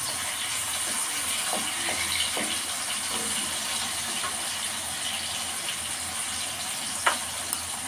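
Tomato pieces frying in hot oil in a steel kadhai, a steady sizzle, with a few light scrapes of a wooden spatula against the pan.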